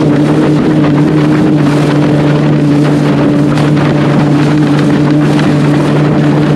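Flipsky 70165 brushless electric motor driving a SUP board at high power, a steady hum of unchanging pitch under the rush of water spray and wind on the microphone.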